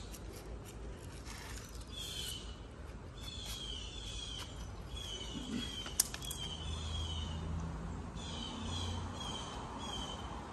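A bird calling over and over: short, high, falling notes, often two or three in quick succession, repeated every second or so. A single sharp click about six seconds in.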